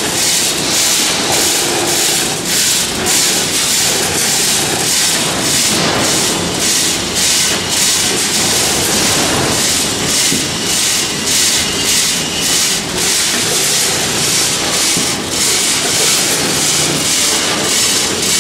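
Multihead weigher running with dry cat food kibble: a loud, steady rattling hiss of kibble shaken along the feed pans and pouring through the hoppers, broken by frequent sharp clicks.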